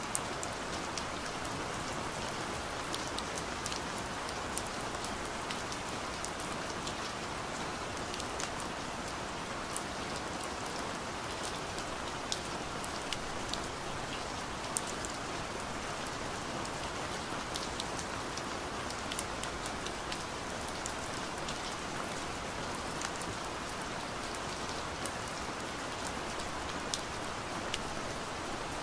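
Steady rain: a continuous hiss with many small, sharp drop ticks scattered through it.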